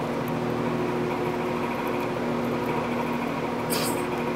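Steady mechanical hum holding a few constant tones, with a short scrape just under four seconds in.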